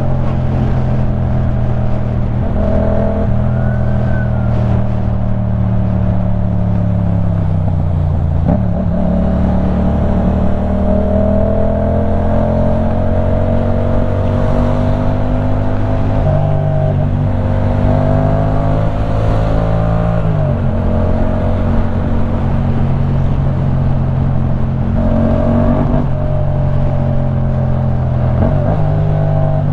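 2015 Yamaha MT-07's parallel-twin engine through a LeoVince One Evo full exhaust system while riding, engine speed rising and falling with the throttle, with sudden changes in pitch about eight and twenty seconds in at gear changes.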